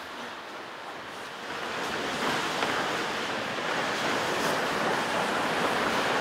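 A huge sheet of paper, 15 metres square, rustling and crackling as several people lift it and drag it across the floor. The rustle grows louder about two seconds in and then holds steady.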